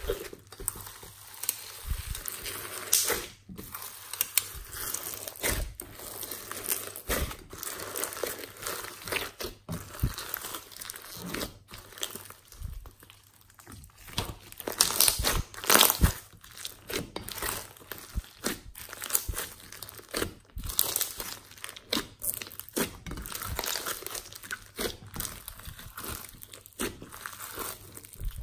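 Slime mixed with foam beads and glitter being squished and kneaded by hand, making irregular crackling and popping, with a louder flurry about halfway through.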